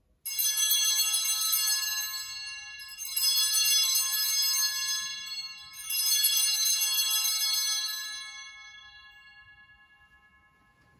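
Sanctus bells shaken three times, each ring a bright jingle of several small bells, the last dying away over a few seconds. They are rung at the elevation of the chalice at the consecration.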